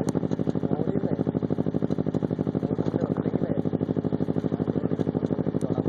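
Kawasaki Ninja 250R's parallel-twin engine idling steadily through a Two Brothers slip-on exhaust, an even, rapid pulsing beat.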